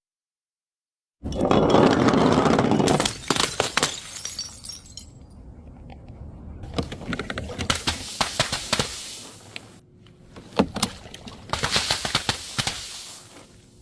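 Breakable bottles being smashed: a loud shatter just over a second in, followed by scattered crackling and clinking of fragments, and another burst of breaking near the end.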